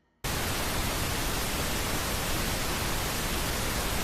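Television static: a steady, even hiss that switches on abruptly about a quarter second in and cuts off just as abruptly at the end, like flipping between channels.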